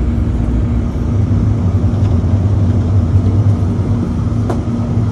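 Electric light-rail train running along the track, heard from inside the car: a steady low rumble with a steady hum over it, and a faint click near the end.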